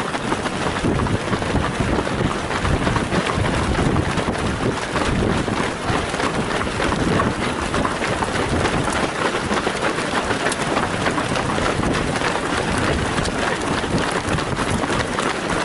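Wind rumbling on the microphone of a camera carried by a runner, over the quick patter of many runners' shoes on the road.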